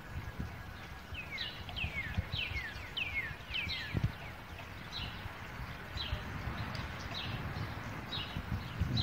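Bird calling outdoors, a run of quick high notes that each slide downward, repeated in bursts, over a steady low rumble with a soft thump about four seconds in.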